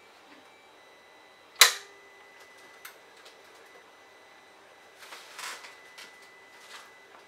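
The Sharp VZ-3000's vertical turntable door mechanism engages with one sharp, loud click about one and a half seconds in, after a firm press of the soft-touch open/close button. The motorised front door then swings shut over the record, with a faint motor hum and a few light ticks, and some rattling and scraping around five to six seconds in.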